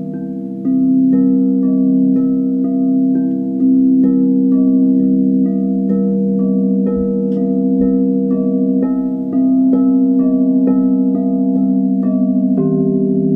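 Frosted quartz crystal singing bowls struck one after another with a mallet, about two strikes a second. Each note rings on, so the tones layer into a sustained hum.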